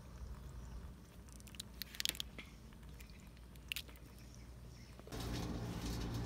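A crab's shell cracking and clicking as it is pried apart by hand: a few short, sharp snaps. About five seconds in, a steady sound of water sloshing in a metal basin begins.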